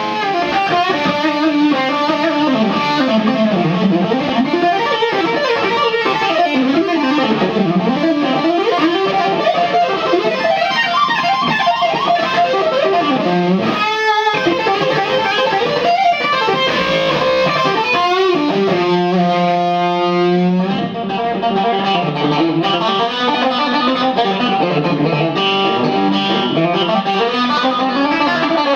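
Cilia Halo electric guitar played through a Badcat Hotcat 30R valve amp: fast lead runs of single notes up and down the neck, with one note held for about a second and a half some two thirds of the way through.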